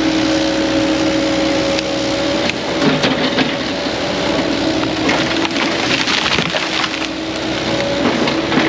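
Diesel land-clearing machine working steadily while breaking up brush and wood, with cracking and splintering. Its steady whine sags briefly twice, about three seconds in and again near the end.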